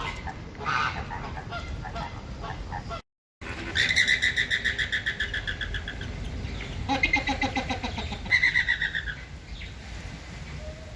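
Flamingos honking: goose-like calls made of rapid pulses, in a long bout of about two seconds and then two shorter ones. Before a brief silent break about three seconds in, softer scattered calls.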